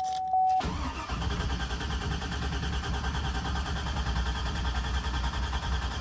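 Starter cranking the 2003 Cadillac Escalade EXT's V8 steadily without it catching: a crank-no-start that the owner puts down to the fuel pump getting no power, likely a bad fuel pump relay or no start signal from the computer. A steady warning-chime tone cuts off just before the cranking begins.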